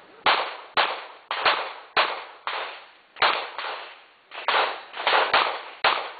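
Gunfire in a rapid, uneven string: about a dozen sharp shots in six seconds, some in quick pairs, each trailing off in a short echo.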